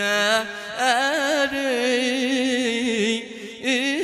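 Male voice singing a Sanaani (Yemeni) nasheed in long, ornamented melismatic phrases with wavering pitch.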